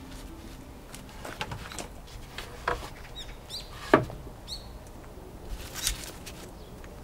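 Wooden compost box lid and slatted pine panels knocking and tapping as the box is handled, with one louder knock about four seconds in and a rustle near the end. A small bird chirps a few times.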